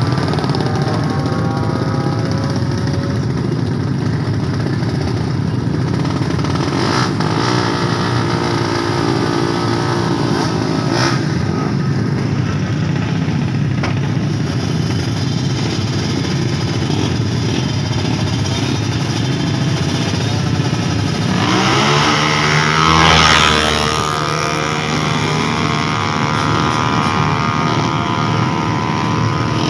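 Drag-racing motorcycle engines revving at the start line, several engines blipping and running together. About 22 seconds in, one engine revs up sharply to the loudest point, then holds a steadier high note.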